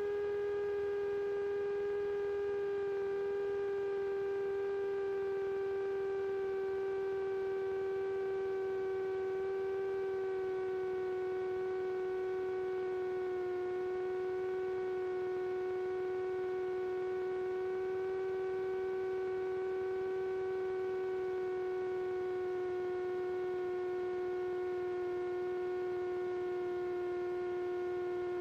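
Piper Sport's Rotax 912 engine and propeller droning steadily in the cockpit, with the pitch sinking slightly as power comes back on the approach.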